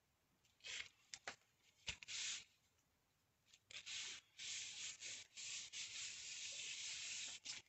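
Hands rubbing and pressing a freshly glued watercolour-paper panel flat onto a card base: a few short paper scuffs, then several seconds of steady rubbing.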